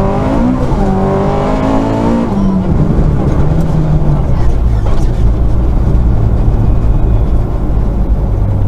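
Rally car engine and drivetrain heard from inside the cabin at speed on a snow-covered gravel stage, with road and tyre noise. The engine note swings up and down in the first couple of seconds, then holds steady.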